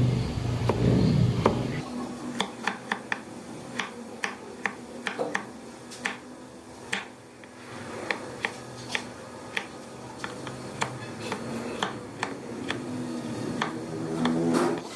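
A low vehicle rumble for the first couple of seconds, cutting off suddenly. Then irregular sharp clicks or taps, about two a second.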